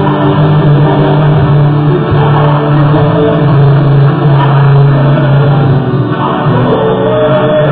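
Loud music led by guitar.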